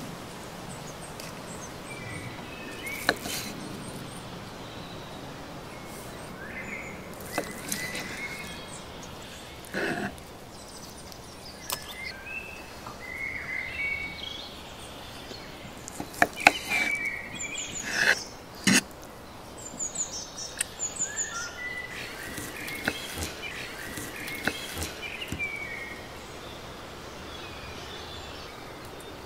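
Outdoor background with small birds chirping on and off, the chirps thickest in the second half. A few sharp knocks and clicks of metal cutlery against a wooden cutting board.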